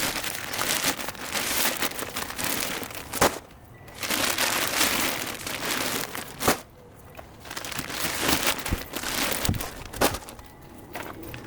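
Crunching and scraping of hand yard work, a garden tool working through soil or mulch, in three long stretches, each broken off by a sharp knock.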